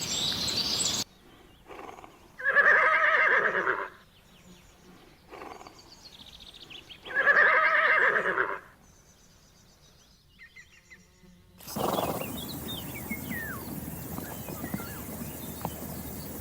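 A horse whinnies twice, each call about a second and a half long and about five seconds apart. Near the end, outdoor ambience with birds chirping.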